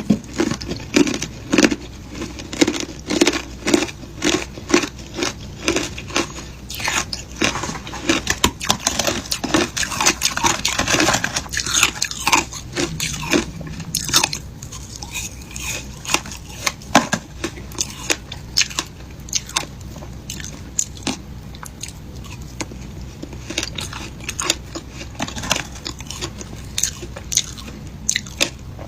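Shaved ice being crunched and chewed in the mouth: a steady run of crisp crunches, a few a second.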